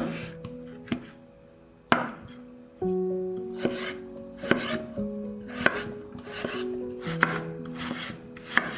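A chef's knife cutting peeled raw potatoes into chunks on a bamboo cutting board: about one cut a second, each a short scrape through the potato ending in a sharp knock on the wood. Background music plays underneath.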